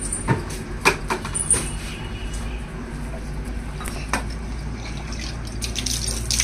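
Water poured from a steel mug splashing over a cow's teats near the end, washing the udder before hand-milking. A few knocks come earlier, over a steady low hum.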